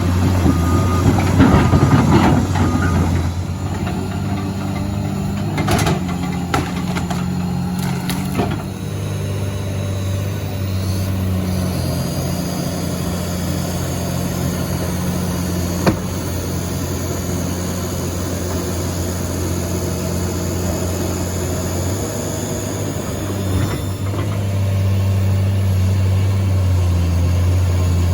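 Heavy diesel machinery engine running steadily at a low, even pitch. There are several short knocks over the first eight seconds and a single sharp knock about sixteen seconds in. The engine grows a little louder near the end.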